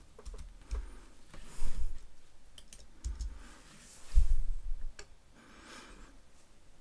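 Scattered clicks of a computer keyboard and mouse, with a few low thumps in between, the strongest about four seconds in.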